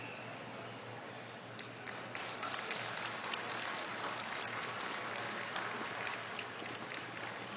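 Audience clapping, building up about a second and a half in over the hall's background noise and easing off near the end.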